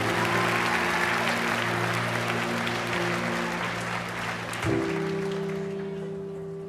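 Audience applause over sustained background music chords; the applause fades away over the last couple of seconds while the music holds, moving to a new chord about two-thirds of the way through.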